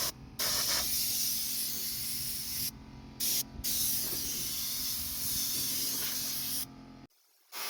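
A small John Deere tractor's engine running steadily under a loud, even hiss. The sound cuts out abruptly several times: briefly near the start, twice around three seconds in, and near the end.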